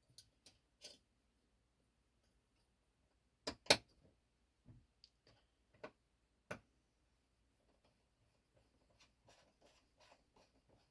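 Scattered small clicks and taps of folding-knife parts and a bit driver being handled, with two sharper clicks about three and a half seconds in, then a run of light ticking near the end as the pivot screw is being driven in.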